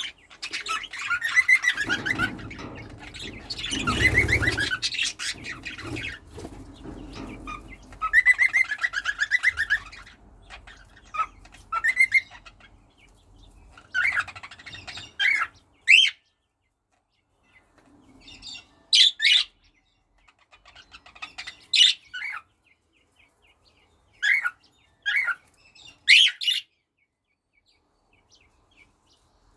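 Pet birds chattering and whistling: a dense run of rapid, pitched calls for about the first ten seconds, then separate short, sharp calls and chirps every second or two that trail off near the end.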